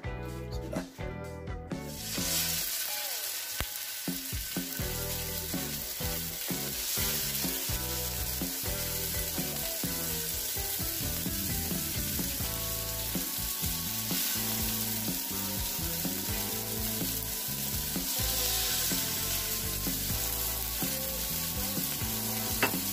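Salmon fillets sizzling in hot olive oil on an electric griddle plate. The sizzle sets in about two seconds in as the fish goes down, then carries on steadily while more fillets are laid beside it.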